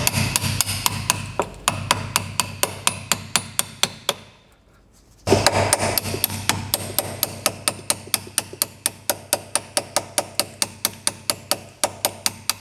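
A hammer tapping steadily on the rear brake caliper, about four sharp metallic strikes a second, to free the brake pad retaining clip and spring. The tapping pauses for about a second partway through, then resumes at the same pace.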